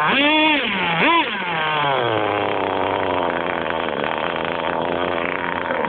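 Nitro RC car's small two-stroke glow engine revving twice in quick succession, then its pitch falls away over about two seconds and it settles to a steady idle.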